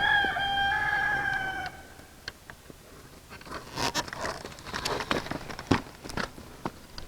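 An animal's single long, high, steady call, held for about a second and a half, then scattered light rustles and clicks.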